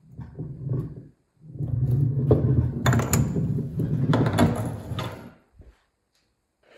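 Metal engine parts scraping and knocking as they are slid across a wooden workbench: a rough low rubbing in two stretches, the longer one about four seconds, with a few sharp metallic clicks.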